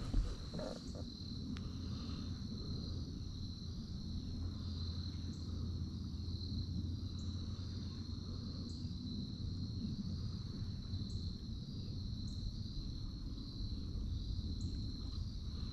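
A steady insect chorus of crickets, a continuous high trill that holds unbroken, over a low steady rumble.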